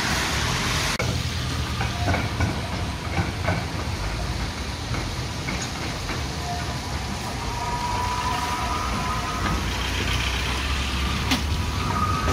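Road traffic hissing on a wet street, then a Krakowiak articulated tram rolling in through a curve. From about two-thirds of the way in, its wheels give a faint high squeal on the bend, with a sharp click or two over the rail joints near the end.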